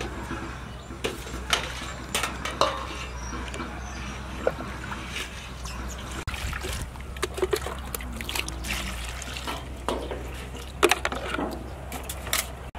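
A knife cutting leafy greens with a few crisp strokes, then, after about six seconds, water poured from a plastic scoop over vegetables in a metal basin, splashing and sloshing in quick irregular bursts.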